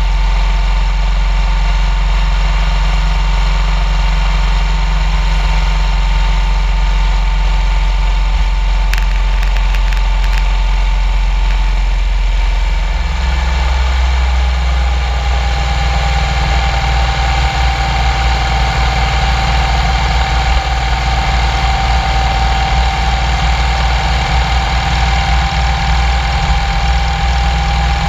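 Motorcycle riding at cruising speed: a steady engine hum under loud wind and road rumble. The steady tone in the hum drops a little about halfway through.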